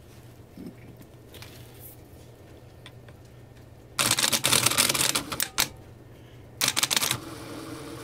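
Bench-powered aftermarket gear-reduction starter motor fed through a thin jumper wire: a loud burst of rapid crackling clatter about four seconds in lasting under two seconds, a shorter second burst a little later, then a fainter steady hum. The wire is too thin to carry the starter's full current.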